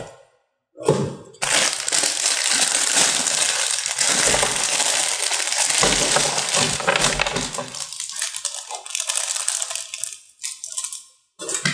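Clear plastic packaging bag crinkling loudly as hands open it and pull out the clock parts, then lighter rustling and a few small clicks as the parts are handled.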